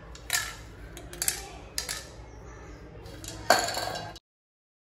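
A metal aerosol spray can of acrylic lacquer clinks and knocks as it is handled, with a louder knock about three and a half seconds in as it is set down on a concrete floor. The sound then cuts off abruptly.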